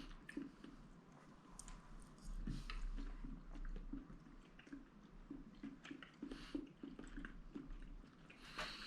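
A person chewing a mouthful of soured lamb meat and fat, with faint, irregular wet mouth sounds and small clicks.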